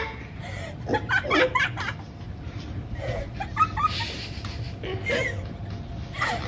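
A person laughing softly in short, scattered bursts, over a steady low hum.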